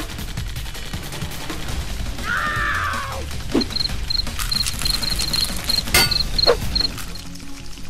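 Animation sound effects over background music: a warbling electronic screech about two seconds in, then a rapid string of short, high electronic chirps. A sharp zap about six seconds in comes as a spark flashes between the robots.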